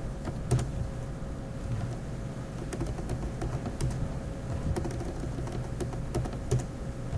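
Computer keyboard typing: keys clicking in short, irregular runs over a faint steady hum.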